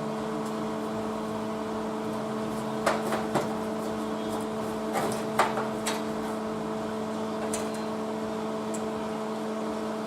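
A machine runs with a steady, even hum. A few light clicks and knocks come about three seconds in and again around five to six seconds in.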